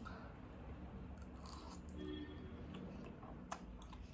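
Faint chewing of noodles, with a few soft clicks over a low steady hum.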